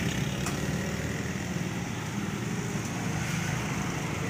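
A small engine idling with a steady low throb, plus one sharp click about half a second in.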